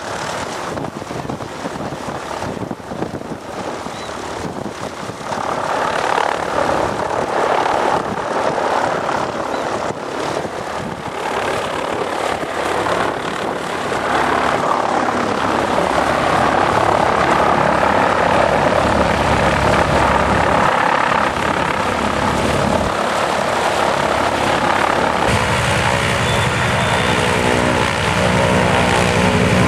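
Antonov An-2 biplane's nine-cylinder radial engine running with its propeller turning, over wind on the microphone at first. The engine sound grows louder about five seconds in and again midway, and near the end turns to a steadier, clearly pitched drone.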